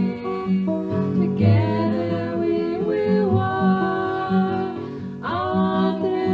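A song: acoustic guitar accompaniment with a singing voice carrying the melody in long, held notes that glide between pitches.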